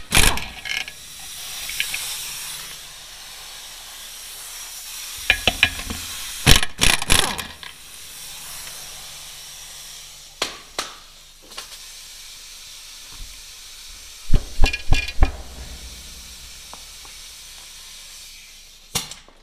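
Air impact wrench rattling off the brake chamber mounting nuts in short bursts, with metallic clanks between, over a steady hiss of air.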